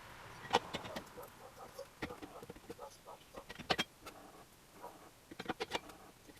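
Irregular sharp clicks and knocks of tools and small metal parts being handled during moped repair work, with a cluster of quick clicks near the end.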